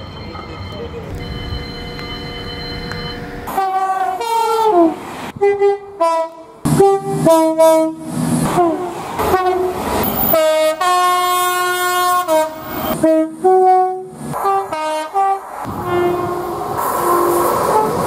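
Train horns edited one after another: a quieter hum for the first few seconds, then a run of short two-tone horn blasts with abrupt cuts between them, some sliding down in pitch as the train passes. About halfway there is one long steady two-note horn chord, and near the end the rumble of a passing train.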